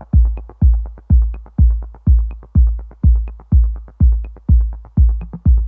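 Electronic background music with a steady, bass-heavy drum-machine kick beat, about two beats a second, with light higher ticks over it.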